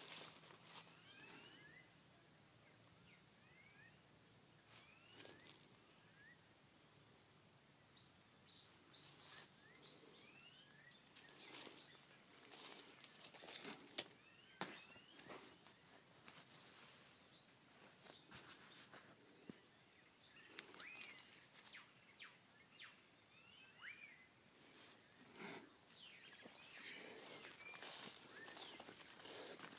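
Faint footsteps and rustling through ground cover and dry oil-palm fronds, with scattered short bird chirps and a steady high insect drone.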